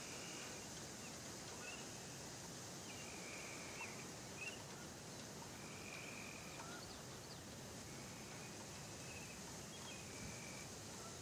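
Steady outdoor background hiss with faint, short, high trilling calls from small animals, repeating irregularly every second or two.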